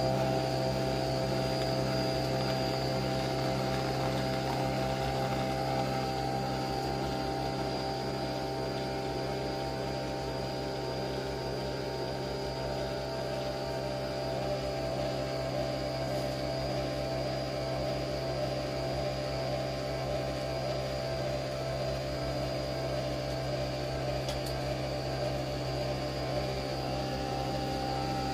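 Capsule coffee machine running its brew cycle: a steady hum.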